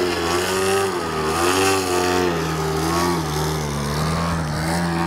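Single-cylinder two-stroke DLE 50 cc gas engine of an RC Yak 54 aerobatic model running at high power, its pitch rising and falling every second or so as the throttle is worked to hold the plane in a torque hover.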